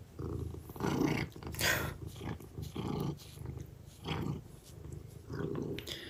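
Domestic cat purring hard on a lap, the purr swelling and fading in pulses with its quick breaths. This is an excited cat under treatment whose breathing runs faster than is safe for it; it should stay under 30 to 35 breaths a minute.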